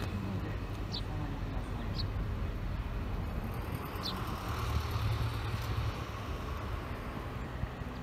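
Low, steady outdoor rumble with three short, high bird chirps about one, two and four seconds in.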